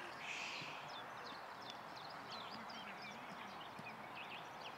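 Small birds chirping: many short, high calls in quick succession over a steady background hiss.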